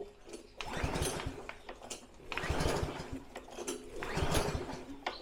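Pull-cord recoil starter on a freshly primed new lawnmower engine being yanked three times, each pull a burst of rapid cranking chatter lasting over a second; the engine turns over but does not catch yet.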